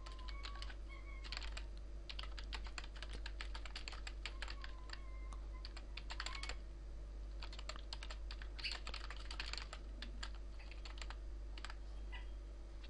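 Typing on a computer keyboard: quick runs of keystroke clicks with a short pause about two-thirds of the way through, thinning out near the end.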